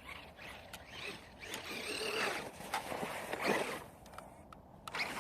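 Traxxas Maxx RC monster truck's electric motor whining up and down in pitch with bursts of throttle, over a rough hiss of the tires on snow; it eases off near the end.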